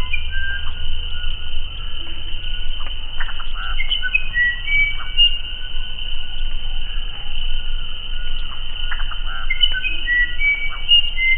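Uirapuru (musician wren) singing short phrases of clear, flute-like whistled notes that jump between pitches, over a steady high insect drone. A low rumble sits under the first couple of seconds.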